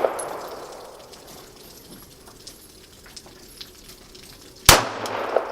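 One gunshot about four and three-quarter seconds in, with a decaying echo after it; the echo of the previous shot fades out at the start.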